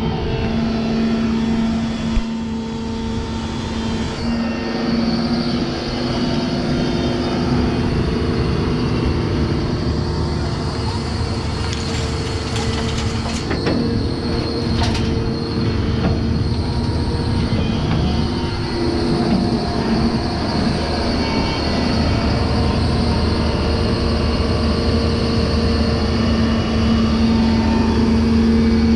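Doosan DX225LCA hydraulic excavator's diesel engine running under working load, a steady drone throughout. Around the middle come a few high metallic squeals and clanks.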